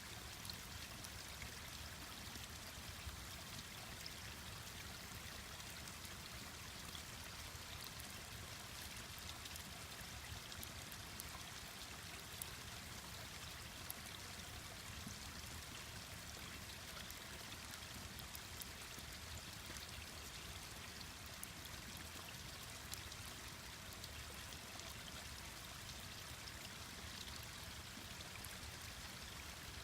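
Mountain stream rushing steadily, with scattered small crackles and pops from a wood campfire.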